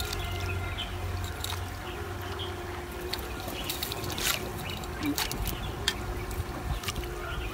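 Water trickling and dripping from a wet gill net as it feeds out of a hand, with scattered light clicks from the net and its floats.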